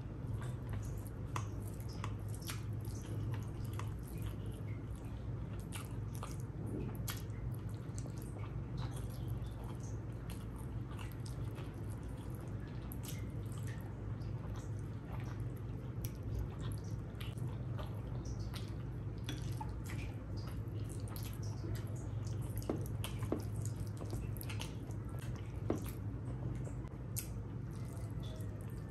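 A person eating rice and curry, with close, wet chewing, smacking and squishing sounds and many small irregular clicks, over a steady low hum.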